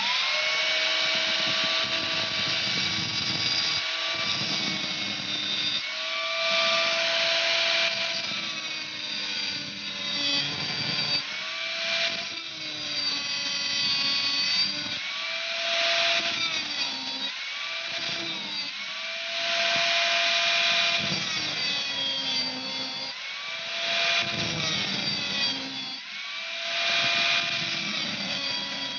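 Angle grinder with a thin cutting disc running and cutting into the copper commutator of an electric motor armature. Its whine drops in pitch each time the disc bites into the metal and climbs again as it eases off, repeating every few seconds, with a hissing grinding noise at each cut.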